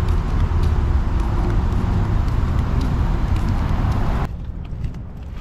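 Road traffic passing close by on a busy street, a dense rushing noise with a low engine hum. About four seconds in it drops suddenly to a much quieter background.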